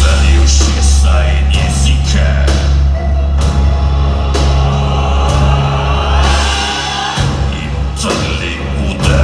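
Industrial rock band and symphony orchestra playing live, over a heavy held bass note with a slow beat about once a second; the bass shifts about seven seconds in.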